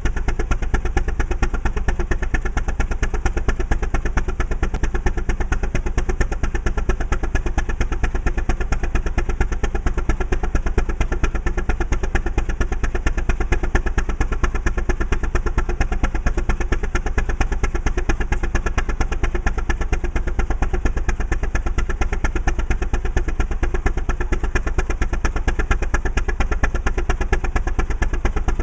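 Antique tractor engine running steadily under belt load, its exhaust beating fast and even as it drives a long flat belt to a pulley.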